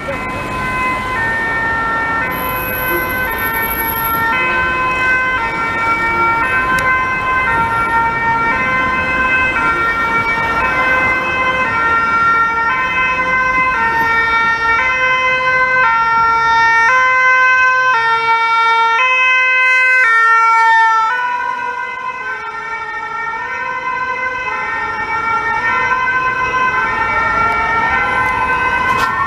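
Emergency vehicle's two-tone siren alternating between a high and a low note, growing louder to a peak about two-thirds through, dipping briefly, then rising again. Near the end a rising wail from a siren comes in. Traffic noise runs underneath.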